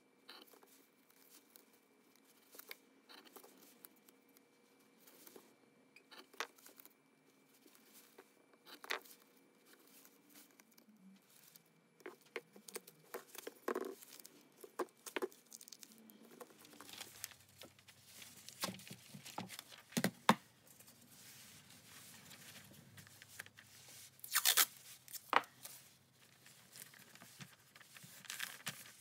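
Yellow masking tape being torn, handled and pressed down onto a steel shovel blade, with scattered small taps and scrapes, sparse at first and busier from about halfway. Paper crinkles near the end as newspaper is laid over the taped blade.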